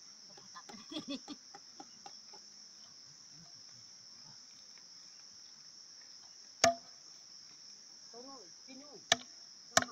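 A steady high-pitched insect chorus, broken by sharp knocks of a machete chopping meat: one loud chop about two-thirds of the way in and two more near the end.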